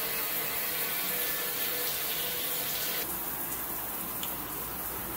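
Shower water running steadily over a channel drain as a flow test, a little softer after about three seconds. The drain is taking the water, which the plumber takes to mean it is not clogged and the blockage was just the little strainer.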